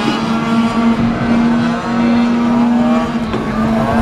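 Several tuned 50cc two-stroke racing scooters running around a circuit. One engine note holds steady throughout, while others rise in pitch as riders accelerate out of the bends, about halfway through and again at the end.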